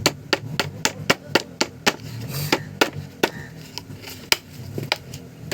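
Sharp taps knocking a mixer grinder's part back into place after oiling: a quick run of taps for about two seconds, then slower single taps.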